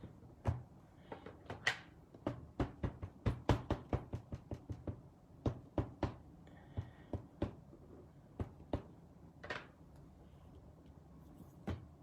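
A run of light knocks and clicks from craft and stamping tools being handled and set down on a tabletop. The clicks come several a second for a few seconds, then turn sparse.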